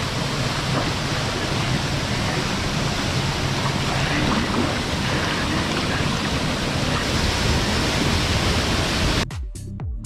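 Waterfall rushing, a steady noise of falling water. About nine seconds in it cuts off abruptly and electronic music with a steady beat starts.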